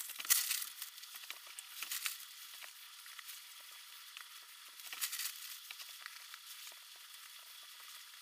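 Hands scraping and pushing loose potting soil up around sweet potatoes in a plastic seed tray: a gritty rustle full of small crackles, coming in bursts, loudest near the start and about five seconds in.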